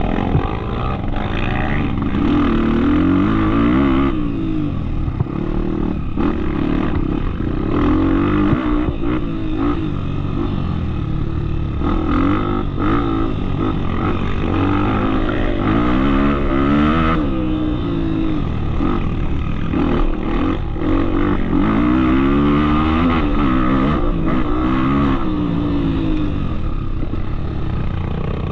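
Trail motorcycle engine ridden off-road, revving up and falling back again and again, its pitch rising and dropping every couple of seconds.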